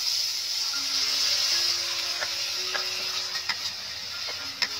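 Chopped ingredients frying in oil in a pan, a steady sizzle, with a metal spatula scraping and clicking against the pan now and then. Faint background music.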